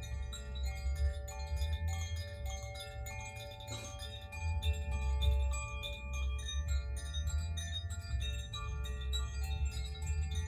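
Koshi and Zaphir wind chimes ringing together, their clappers striking the tuned rods rapidly so that many clear, overlapping tones shimmer and sustain. A low rumble runs underneath.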